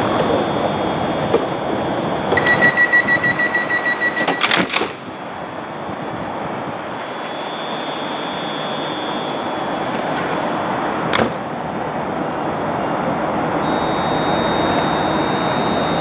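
Door-closing warning on a London Northwestern Railway Class 350 Desiro electric train: a rapid run of high beeps for about two and a half seconds, ending in a thud as the doors shut. After that comes a steady train rumble that slowly builds, with a single click about eleven seconds in.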